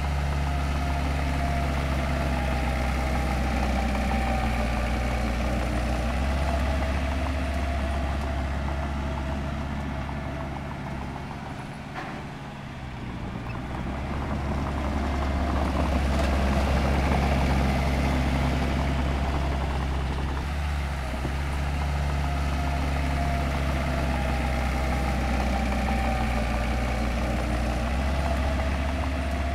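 Heavy diesel engine of earthmoving machinery running steadily. It eases off and grows quieter about twelve seconds in, then comes back up louder a few seconds later.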